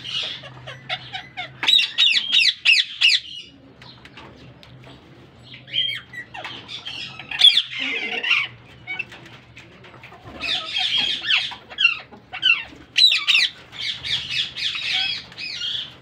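Parakeets calling in spells of rapid, high squawking chatter: a short burst early on, a pause of a couple of seconds, then two longer bursts, the last one running on to the end.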